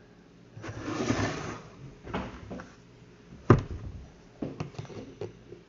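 Household handling sounds: a rustling scrape, then a sharp knock about three and a half seconds in, followed by several lighter clicks and taps.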